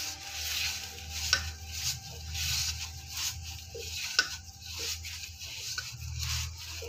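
A hand mixing maize flour with hot water in a stainless steel plate: fingers scraping and squishing the wet flour against the metal, with a few light knocks on the plate.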